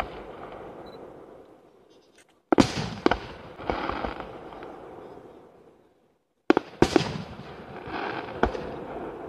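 Aerial firework shells bursting overhead. A sharp bang comes about two and a half seconds in and another about six and a half seconds in, each followed by a few smaller cracks and a fading rush of noise.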